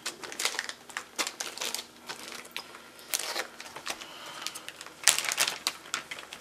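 Clear plastic bag around a replacement laptop LCD panel crinkling in irregular bursts of crackles as the panel is handled and slid out, loudest about five seconds in.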